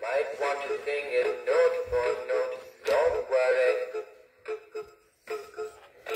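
Animatronic singing fish toy playing a recorded song: a voice singing over backing music. The singing breaks off about four seconds in and starts again just at the end.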